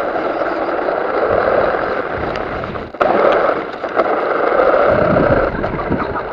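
RC car driving over gravel, its tyres crunching steadily on the loose stones under the motor, heard from a microphone on the car itself. The sound cuts out for an instant about three seconds in and picks straight up again.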